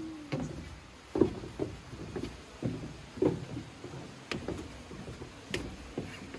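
Footsteps of several people walking down wooden stairs: a run of irregular hollow knocks, about two a second.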